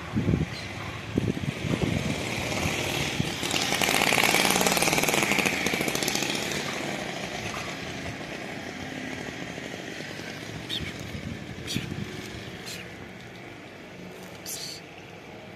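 A motor runs in the background, swelling about three seconds in and then slowly fading away, with a rapid pulsing grain to its noise. There are low bumps on the microphone at the start and a few short sharp clicks near the end.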